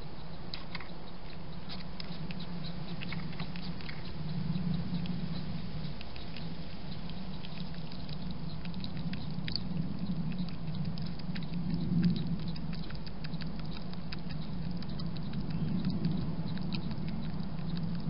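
A European hedgehog eating from a bowl: quick, irregular crunching and clicking of chewing, over a steady low hum.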